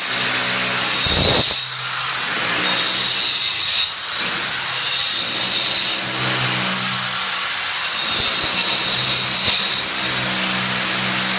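Corded angle grinder fitted with a 114 mm segmented diamond blade cutting into a wall: a steady motor hum under a harsh grinding hiss, the motor's pitch wavering as the blade is pushed into the wall, with a brief jolt about a second in.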